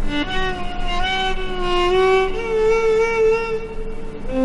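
Background music: a slow solo violin melody of long held notes.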